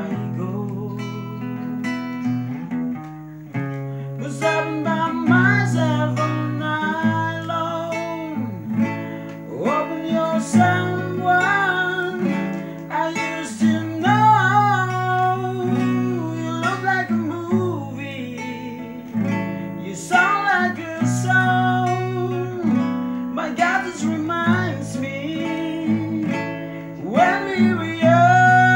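A solo singer's voice with strummed acoustic guitar accompaniment, a song sung in long gliding phrases over steady chords.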